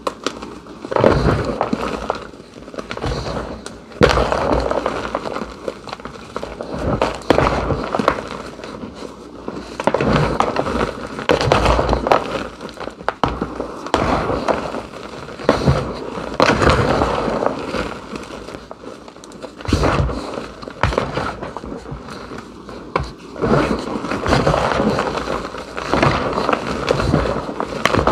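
Hands crushing and squeezing lumpy gym chalk powder: gritty crunching and crackling as the lumps break, coming in waves every couple of seconds with sharp snaps among them.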